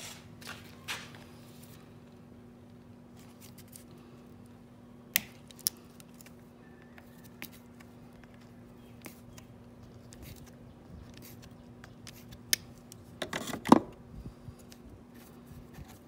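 Pliers and a plastic water-screen fitting being worked out of an outboard's powerhead by hand: scattered small sharp clicks, with a louder clatter of handling near the end, over a faint steady hum.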